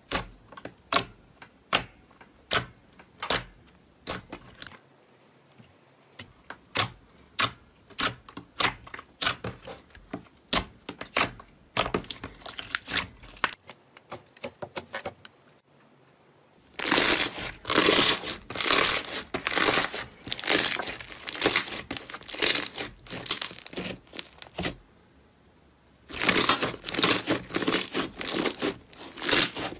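Slime being worked by hand: sharp, separate pops about one to two a second, then long stretches of dense crackling and crinkling as it is squeezed and stretched.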